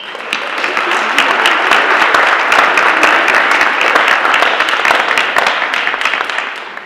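Audience applauding in a large hall, swelling in over the first second and fading out near the end.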